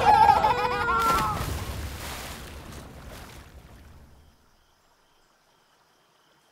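A high, wavering voice in the first second and a half over a rushing noise that fades out, leaving silence from about four seconds in.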